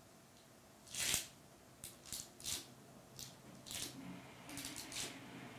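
A fork pressing crisscross marks into balls of cookie dough on baking paper on a metal baking tray: a series of short, scratchy strokes at uneven intervals, the loudest about a second in.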